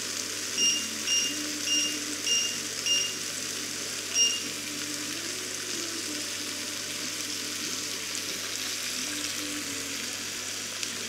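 Meat cutlets sizzling steadily in a cast-iron ridged grill pan. Over the first four and a half seconds come six short electronic beeps from the hob's touch controls, about one every half second, the last after a longer gap.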